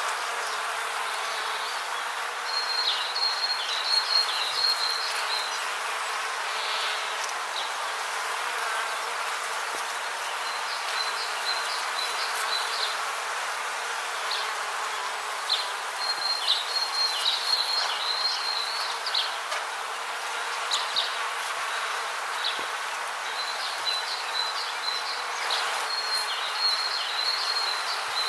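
Rainforest ambience: a steady hiss under bouts of rapid, high-pitched chirping, probably insects, each bout lasting a few seconds and returning every several seconds.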